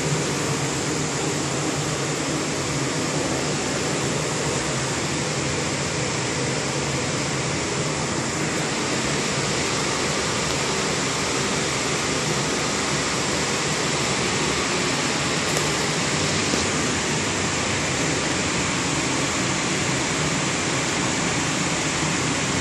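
Water-damage restoration equipment, including a portable air scrubber, running with a steady rushing blower noise, with a faint high whine over it.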